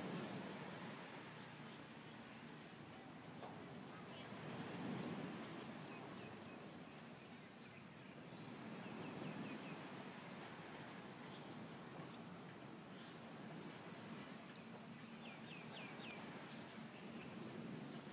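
Faint beach ambience: surf washing in low swells every four or five seconds, with a bird repeating short high chirps and a couple of quick chirp trills.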